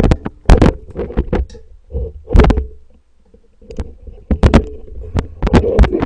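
Irregular sharp clicks and knocks of small plastic yogurt-drink bottles being handled and their foil lids poked through with a tool, close to the microphone, with a short pause about halfway.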